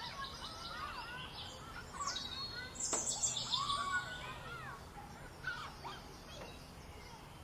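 Several songbirds chirping and singing, short rising and falling calls overlapping each other, busiest in the middle, with a single sharp click about three seconds in.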